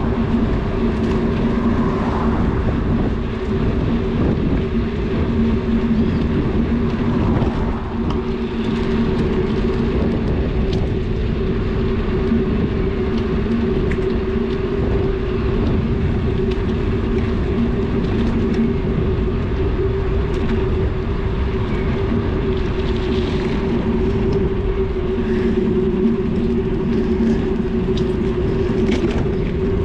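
Bicycle riding noise: a steady tyre hum over a low rumble, with scattered light clicks and rattles.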